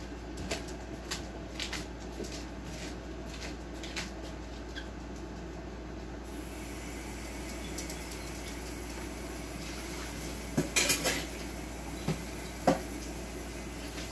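Dishes and cutlery clinking and clattering: a few light clicks in the first seconds, a burst of clatter about ten and a half seconds in, then two more knocks near the end, the last the loudest.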